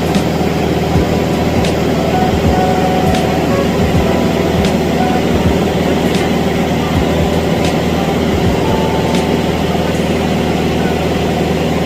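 Airplane's engine running steadily, a loud even drone, with faint sharp ticks about every second and a half.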